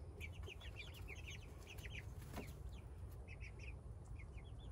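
Young chickens cheeping: a steady flurry of short, high peeps, many birds overlapping.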